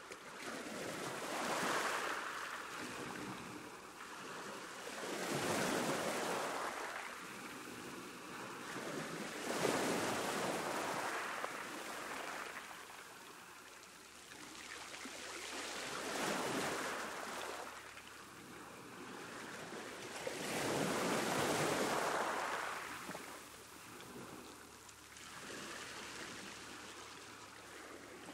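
Ocean waves breaking on a shore, one wave after another, each swelling up and washing back down every four to five seconds.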